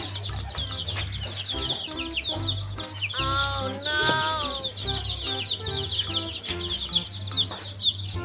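Many young chicks peeping in a constant high chatter, with two louder, lower calls about three and four seconds in.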